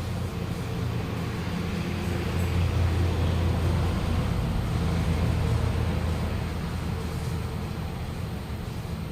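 A motor running with a steady low hum that grows louder for a few seconds in the middle.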